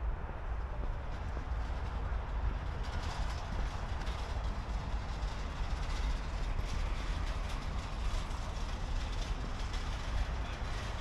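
Steady rumble of vehicle traffic, a little louder and brighter from about three seconds in.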